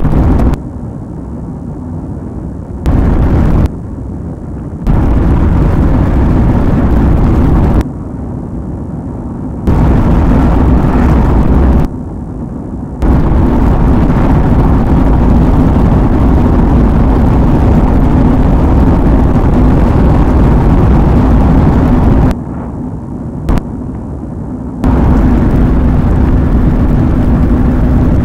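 Loud rumbling vehicle noise with a steady low hum under it, switching abruptly between loud and quieter several times.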